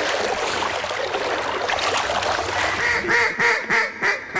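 Mallard quacks blown on a duck call, ending in a quick run of notes, about three a second.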